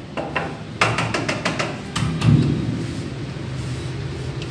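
Electric motor of a stainless-steel poultry plucking machine (1.5 kW) running with a steady low hum as the drum turns. There are a few sharp knocks in the first two seconds.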